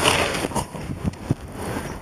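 Handling noise from working in an engine bay: rustling with a few light knocks and clicks as the battery cable and wiring are pulled about.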